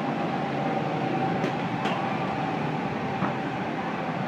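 Batting-cage pitching machine running with a steady whirring hum and a held tone. Two faint knocks come about a second and a half in, half a second apart.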